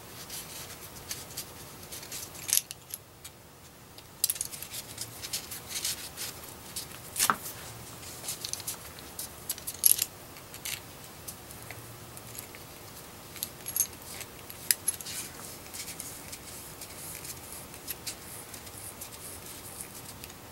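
Close handling noise of small parts: scattered light clicks and taps of metal, with the rustle of a paper shop towel being wrapped around a brass rod and pushed into a PL259 coax connector. A few clicks stand out sharper than the rest.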